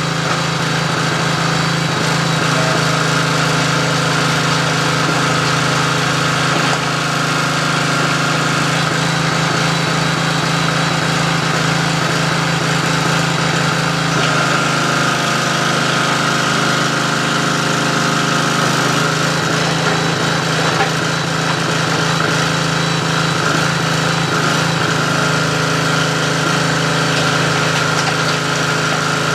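Mini recycling baler running through its crushing cycle: a steady, loud motor hum with a few constant tones above it, which shift slightly about halfway through.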